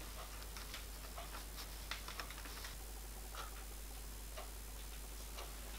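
Faint, irregular light clicks of small steel rivets being handled and shifting against a glass jar, a click every half second or so, over a low steady hum.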